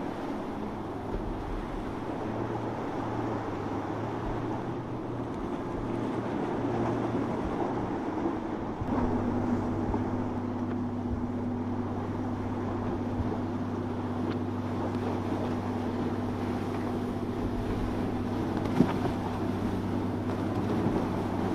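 Outboard motors of center-console boats running at speed, with water rushing off the hulls. About nine seconds in the sound changes abruptly to a steady, even engine hum.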